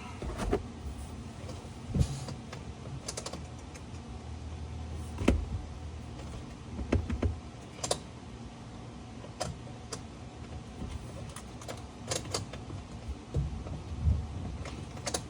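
Irregular clicks, taps and knocks of tools and car parts being handled during repair work, over a faint low steady hum.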